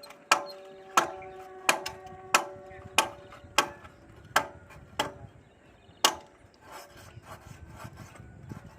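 Repeated hammer strikes on steel, about nine blows at roughly one and a half a second, each ringing with a metallic tone. The blows stop about six seconds in, leaving fainter clatter.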